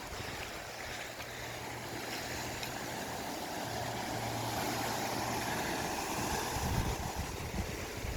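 Ocean surf washing onto a small beach, swelling in the middle, with wind on the microphone. A faint steady low hum runs under the surf until a little past the middle.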